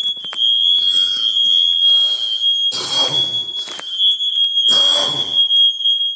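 Several interconnected smoke alarms sounding together: one steady, piercing high-pitched tone that does not pause. A few short rustling noises come through it, loudest about three and five seconds in.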